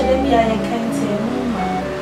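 Background music: a slow melodic score of sustained held notes.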